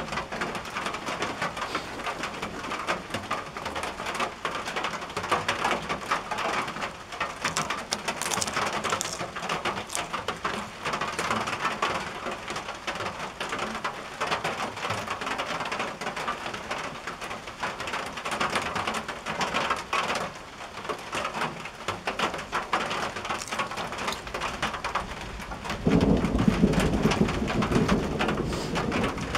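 Steady rain falling on a tin roof, the drops ticking densely and evenly. Near the end a low rumble of thunder rolls in and becomes the loudest sound.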